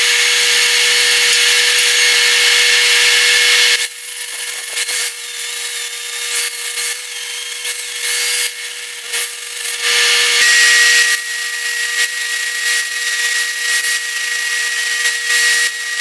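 A handheld power grinder sharpening the worn, rounded edges of steel cleats welded onto a conveyor chain. The motor runs steady and the metal hisses under the disc. It grinds hard for about four seconds, then works more lightly and unevenly, with a higher whine joining about ten seconds in.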